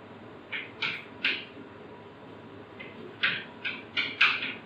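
Quick scratchy strokes of writing or drawing on a board: two near the start, then a faster run of several near the end.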